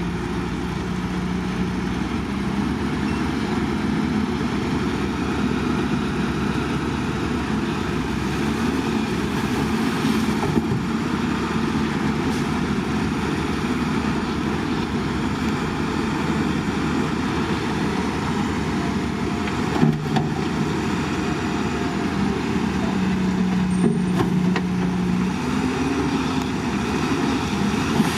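Heavy diesel earthmoving machinery running under load, the engine's speed rising and falling, with a few sharp metal clanks.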